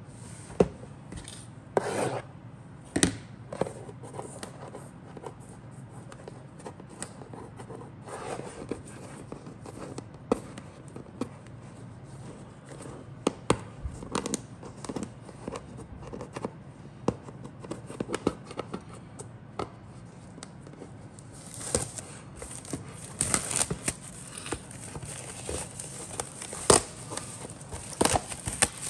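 Hands handling a cardboard model-kit box and its packaging: cardboard rubbing and sliding, with scattered sharp taps and knocks. The handling gets busier, with more crisp rustling, in the last several seconds.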